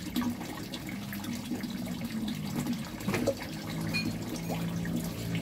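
A thin stream of water pouring from a pipe into a koi pond, splashing steadily onto the surface, with a low steady hum underneath.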